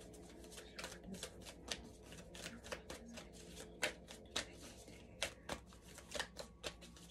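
A deck of Moonology oracle cards being shuffled by hand: quiet, irregular snaps and clicks of the cards, a few each second.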